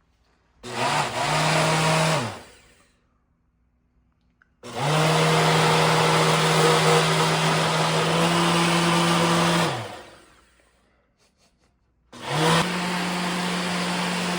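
A small electric motor appliance running in three bursts, spinning up and winding down each time, its pitch stepping up once partway through the longest run.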